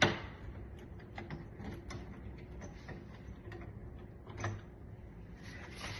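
Screwdriver working stripped screws on a door lock: light metal clicks and scrapes, with a sharp click at the start and a louder knock about four and a half seconds in.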